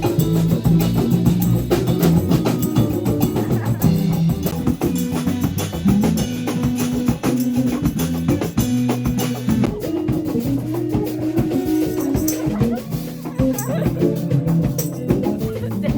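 Band music: a drum kit keeping a steady beat under a bass line that steps between low notes.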